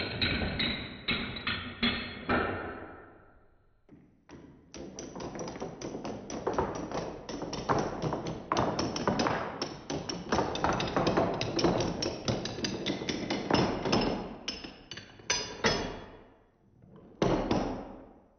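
Padlocks toppling one after another like dominoes: a long run of clattering knocks of metal against metal. It breaks off briefly about four seconds in, then comes back with one last short burst near the end.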